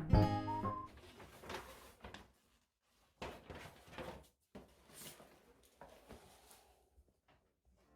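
Guitar background music ending about a second in, then faint scattered rustles and light knocks, like things being handled in a small room.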